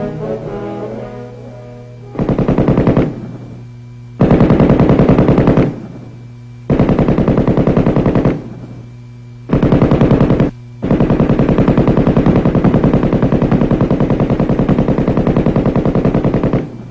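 M60 7.62 mm machine gun firing automatic bursts: four short bursts of about one to one and a half seconds, then a long burst of about six seconds that cuts off near the end. Brass music fades out in the first two seconds, and a steady low hum runs underneath.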